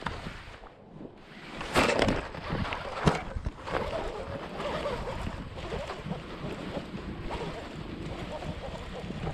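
Wind buffeting the microphone and water lapping against a fishing kayak, with handling knocks and clicks from a baitcasting reel held close to the microphone, the sharpest about two and three seconds in.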